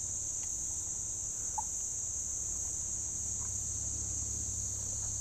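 Steady high-pitched insect chorus of crickets or katydids, droning without a break, with one faint short call about a second and a half in.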